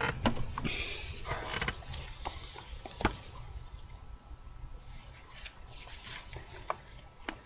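Scattered handling noises: brief rustles about a second in and a few sharp clicks, the clearest about three seconds in, over a low steady hum.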